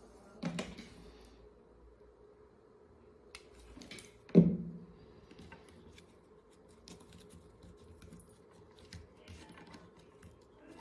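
Small scattered clicks and taps of hands handling paper flowers on a tabletop, with a thump shortly after the start and a sharp knock about four seconds in, the loudest sound.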